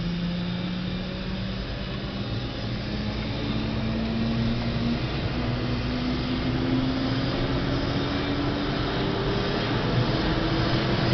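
Helicopter turbine and rotor spooling up on the pad, heard from inside the cabin. A steady whine rises slowly in pitch while the overall noise grows louder.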